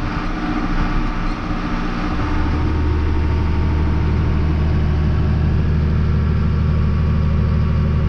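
Farm tractor engine running steadily; about two seconds in it settles into a strong, steady low hum.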